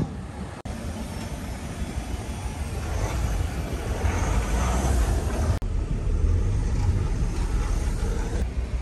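A motor vehicle running: a steady low rumble with a haze of road or wind noise. It is broken by two abrupt cuts, about half a second and five and a half seconds in.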